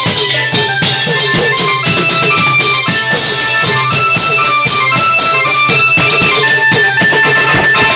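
Thai klong yao long-drum troupe playing: steady drum strokes several times a second, with a melody stepping up and down above them.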